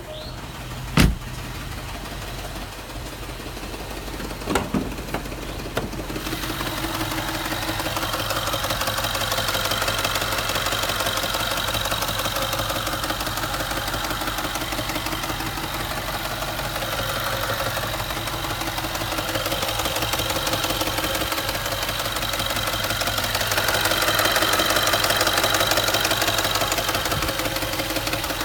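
Range Rover engine running steadily at idle with the knocking the owner complains of at 60,000 miles. Two sharp clicks come in the first five seconds, before the engine sound swells up about six seconds in.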